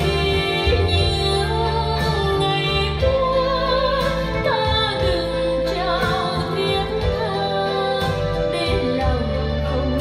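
Vocal music played through JBL L100 Century loudspeakers, driven by a Marantz 4400 receiver. A singer holds wavering notes over sustained bass notes.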